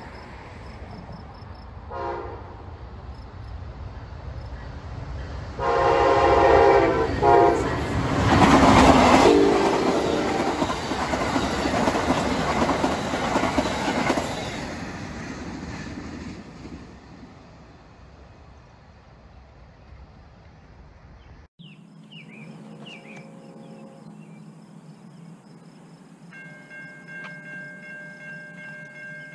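Amtrak passenger train led by a Siemens Charger diesel locomotive sounding its horn, a short blast and then a long one, as it approaches at track speed. The train then passes close by with a loud rush and clatter of the cars that fades over several seconds. After a sudden cut, faint horn tones and a steady ringing tone follow.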